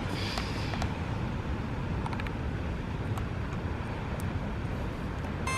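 Steady wind buffeting the microphone over the low, even rush of ocean surf, with a few faint small clicks.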